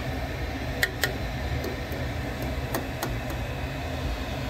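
A few light clicks and taps of a hard 3D-printed plastic part being handled, over a steady low hum.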